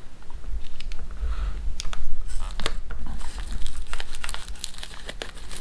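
Packets and wrappers crinkling and rustling in the hand, with irregular light clicks and taps, as small packaged food items are handled and lifted out of a tin.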